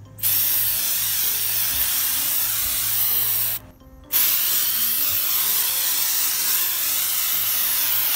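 Aerosol can of FW1 waterless wash wax spraying in two long hisses, the first about three and a half seconds, then after a short break a second one that keeps going.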